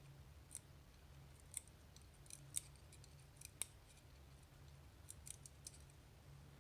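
Faint, sharp clicks of small metal lock parts being handled while an Assa 600 pin-tumbler cylinder is taken apart, about a dozen scattered ticks over a low steady hum.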